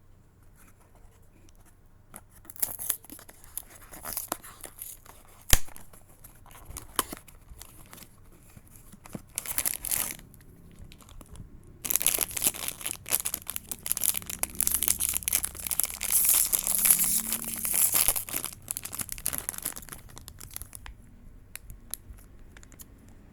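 Blind-box packaging being torn open and crinkled by hand: scattered crackles and a sharp snap at first, then about eight seconds of continuous crinkling and tearing that trails off near the end.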